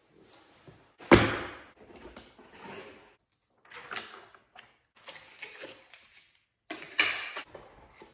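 Cardboard box knocked down onto a wooden table about a second in, then paper and cardboard rustling and scraping as the box is opened and a paper sheet and the cardboard insert are taken out, with a second loud cardboard knock about seven seconds in.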